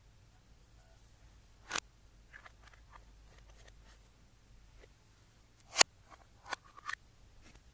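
A few sharp clicks and taps, the loudest about six seconds in and followed by two smaller ones, over faint room tone.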